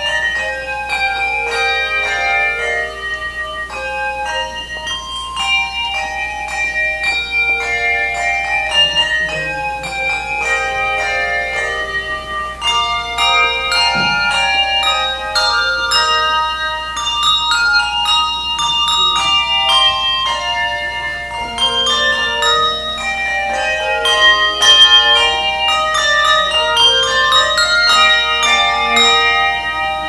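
A handbell choir playing a piece of music: many tuned handbells struck one after another in a melody, their clear notes ringing on and overlapping.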